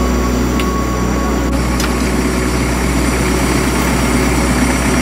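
A 4x4 truck's engine idling steadily with a low, even drone.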